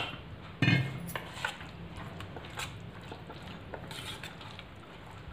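A metal spoon clinking and scraping against a stainless steel container while wet, buttermilk-soaked poha is stirred, with a few scattered sharp knocks.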